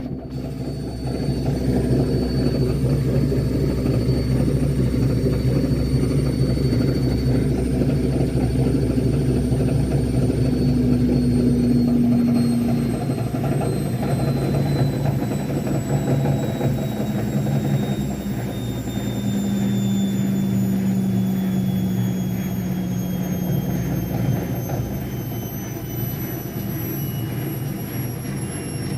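Washing machine in its spin cycle, running with a strange rumbling noise whose cause the owner does not know. A thin high motor whine falls slowly in pitch throughout, and the low rumble changes about twelve seconds in.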